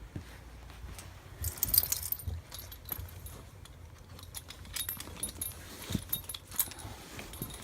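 Metal jingling in short clusters, with scattered clicks and knocks over a low handling rumble.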